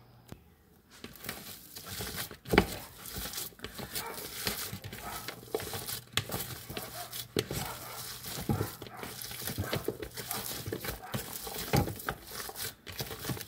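Hands squeezing and kneading raw ground beef and pork in a plastic bowl: irregular wet squelching and crackling, with the plastic bowl rustling and knocking, starting about a second in. A sharp knock about two and a half seconds in is the loudest sound.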